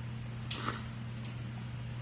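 A short breathy sniff about half a second in, over a steady low hum.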